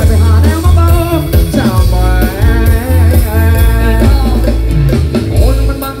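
Loud music from a Thai rot hae sound-truck band played through a big speaker stack: a singer over heavy bass, drums and guitar.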